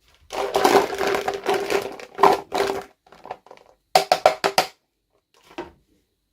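Toy packaging being handled close to the microphone: a few seconds of rustling and scraping in uneven bursts, then a quick run of about six sharp taps, and one last faint rustle near the end.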